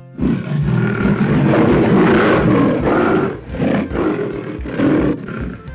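Tiger roaring: one long roar, then several shorter growling roars.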